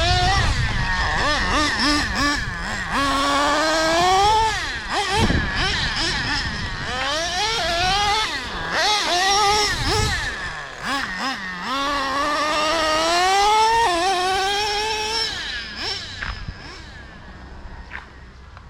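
Traxxas Slayer Pro's 3.3 nitro engine revving as the RC truck runs, its pitch climbing with each burst of throttle and dropping off between, several times over. It grows fainter over the last few seconds.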